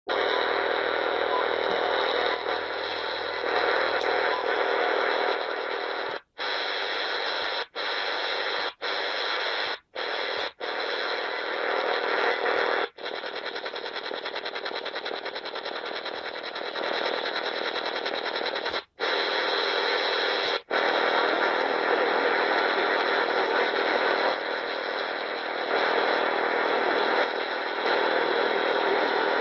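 Shortwave radio receiver tuned near 10 MHz, playing a dense, harsh noise signal with faint steady tones through it. The signal cuts out to silence briefly about eight times, with the level stepping up and down between the cut-outs. The uploader takes it for a strange beeping signal and wonders whether it is a Russian radar.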